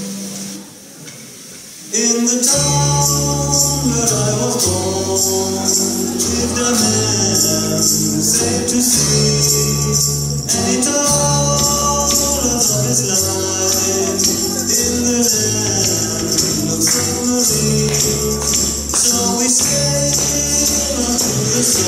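A song starts about two seconds in after a brief lull, with a steady jingling percussion pattern over a bass line and shifting melody.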